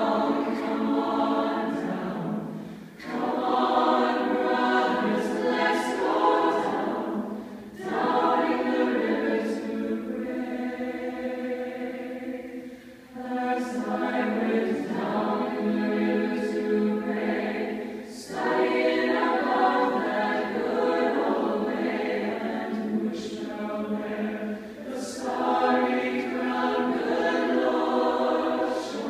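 Mixed university choir singing a cappella in a live, echoing hall: sustained chords in phrases of about five seconds, with short breaks for breath between them.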